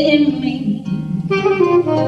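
Jazz ballad instrumental solo on saxophone, over low accompaniment. A long held note gives way to a new phrase about a second and a half in.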